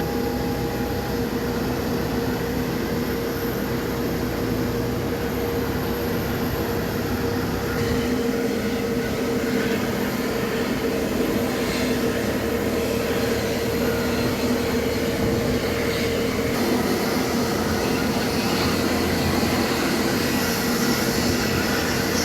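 Jet airliner engines running steadily at low power, a constant rumbling drone with a steady hum in it and no rise or fall in pitch.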